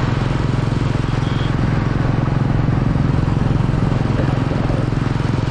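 Royal Enfield motorcycle's engine running steadily under way, heard close up from the moving bike with a steady rush of wind and road noise.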